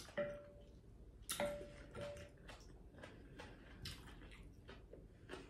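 A spatula knocking and scraping against a glass mixing bowl while stirring sauce: faint, irregular light clicks about two a second, a few of them followed by a short ringing tone from the glass.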